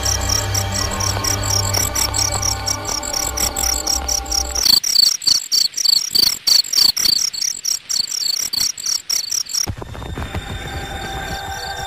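Crickets chirping in a rapid, even rhythm. Under them, sustained low droning tones cut out about a third of the way in, leaving the chirping alone and louder, then come back near the end.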